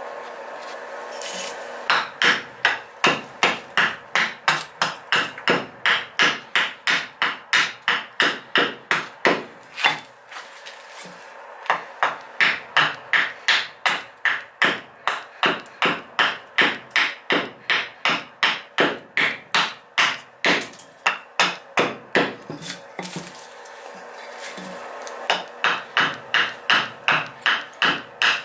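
Hatchet hewing the side of a buckthorn blank on a wooden chopping stump: quick, even chops about two or three a second, each a sharp knock. They come in three runs, with short pauses about ten and twenty-three seconds in.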